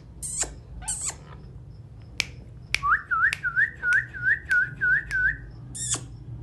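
Pet parrot giving two short harsh squawks, then whistling a quick run of about eight rising notes, roughly three a second, with another squawk near the end and sharp clicks scattered between.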